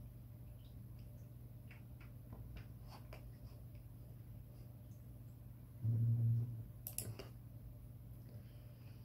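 Quiet room with a steady low electrical hum, a few faint computer-mouse clicks, and a short low closed-mouth 'hmm' from a man about six seconds in, followed by a sharper click.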